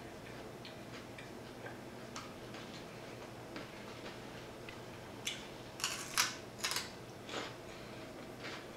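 Close-miked eating sounds: small wet mouth clicks and chewing, then a quick run of about five crisp crunches midway through as a celery stick dipped in blue cheese dressing is bitten and chewed.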